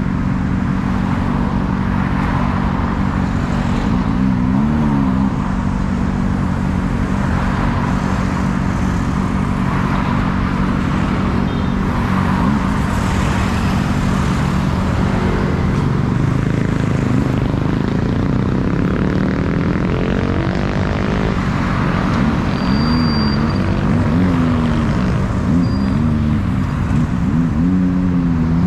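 Car driving through city traffic: steady engine and road noise, with engine notes rising and falling briefly about five seconds in and repeatedly near the end.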